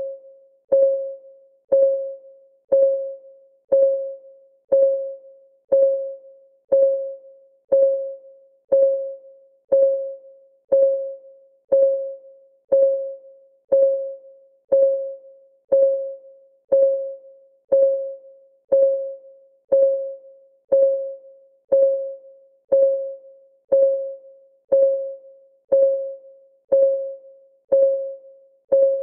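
Ticking clock sound: a steady tick about once a second, each tick a short pitched click that rings briefly and dies away.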